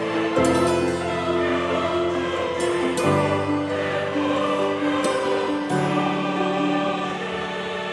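Background music with a choir singing sustained chords over low held notes, the chords changing every few seconds.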